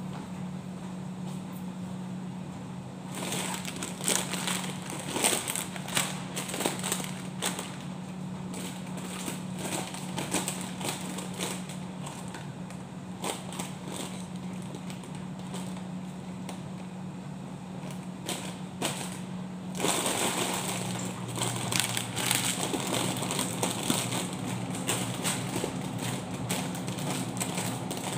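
Plastic snack packets crinkling and rustling as they are handled and stacked, in irregular bursts that grow busier about two-thirds of the way through, over a steady low hum.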